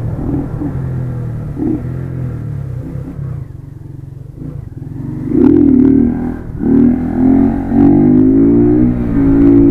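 Motorcycle engine running, throttle eased off about three and a half seconds in, then revved hard from about five seconds in with its pitch rising and falling, as the rider tries to pull the bike up into a wheelie.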